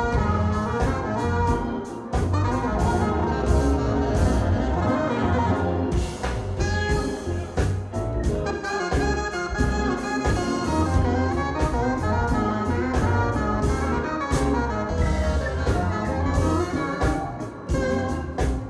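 Live jazz-funk band playing: electric bass and drums keep a driving beat under a horn line, most likely saxophone, with keyboards.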